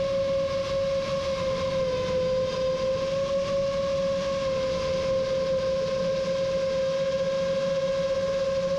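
Motors of an FPV quadcopter, the Rajawali Fold 7, whining steadily at cruising throttle. It is one high tone with its overtones, sagging slightly in pitch about two seconds in.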